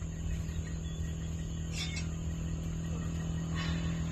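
Steady low hum of a motor vehicle engine running, with two brief soft hissing noises, about two seconds in and again near the end.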